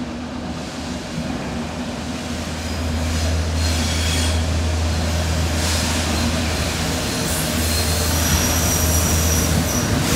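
Class 73 locomotive approaching and passing close, hauling tank wagons: a steady low drone that grows louder a few seconds in, with a high-pitched wheel squeal setting in near the end.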